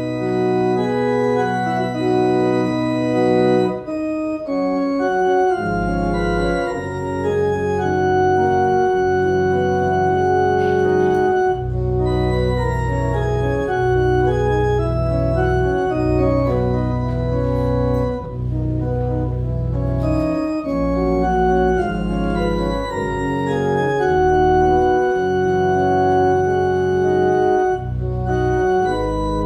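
Church organ playing slow, sustained chords, with deep bass notes joining about six seconds in.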